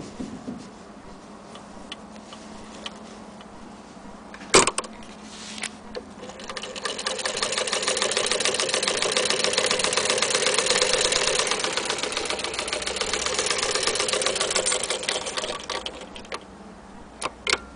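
Hand-crank Singer 15K80 sewing machine stitching through denim: a rapid, even clatter of stitches that builds from about six seconds in and fades out near the end. A single sharp click comes a few seconds before the stitching starts.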